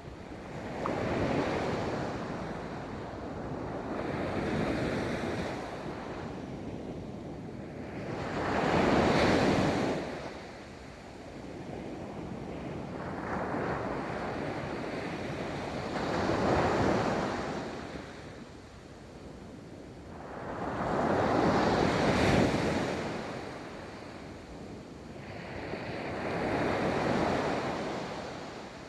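Ocean waves rolling in and breaking on a beach, each wave swelling into a rushing wash and fading, about every four to six seconds. Some wind noise on the microphone underneath.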